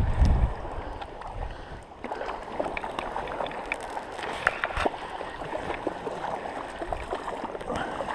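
Shallow sea water sloshing and lapping, with many small splashes and clicks.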